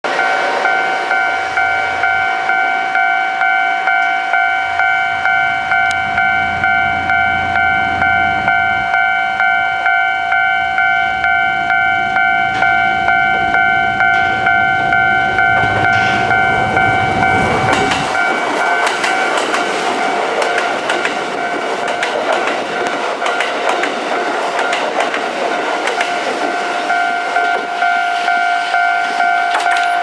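Level-crossing warning bell ringing in a steady repeating beat while Kintetsu electric express trains pass. A low rumble from a passing train runs until about 18 seconds in, then gives way to a wider rushing noise as the oncoming train approaches.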